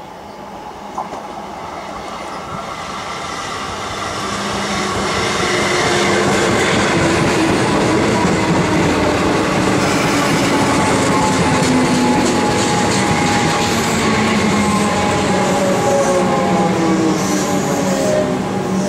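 Siemens Nexas electric train coming in along the platform. Wheel and rail noise builds for the first few seconds, then holds loud. Over it the traction motors whine in several tones that slowly fall in pitch as the train slows.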